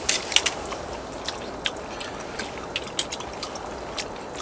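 Sharp clicks and clatters of cooked scallop shells being pried open and handled, over a steady hiss. The loudest clicks come in the first half-second, then sparser ones follow.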